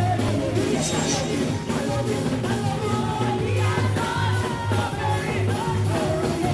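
Live gospel praise-and-worship music: a woman sings lead into a microphone over a keyboard-led band, with a steady pulsing bass beat.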